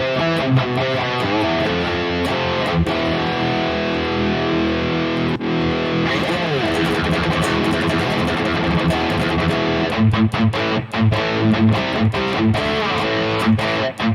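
High-gain distorted electric guitar played through a Harley Benton DNAfx Git Pro modeler, on a tube screamer into Brit Plexi amp patch. It plays held, ringing chords and riffing, then from about ten seconds in switches to short, tight chugs that cut off sharply between notes under a noise gate.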